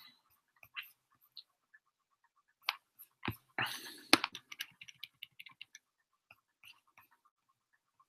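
Faint scattered clicks and taps in a small room, with a brief rustle a little past halfway, typical of hands working a computer keyboard or mouse.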